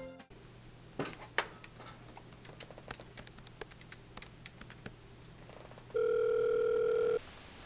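Faint scattered clicks, then about six seconds in a steady telephone tone sounds for just over a second as a call is being placed.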